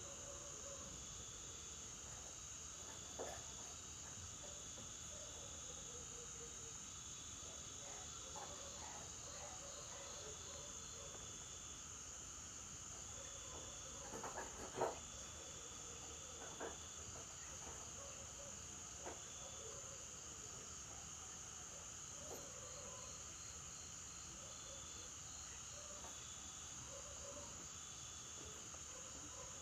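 Night insects trilling: a steady high-pitched drone, with a second, lower trill that starts and stops in short runs. A few faint knocks sound through it, the loudest in a small cluster about halfway through.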